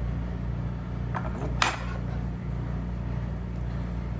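A utensil clinks against a dish twice, close together about a second and a half in, the second louder, over a steady low hum.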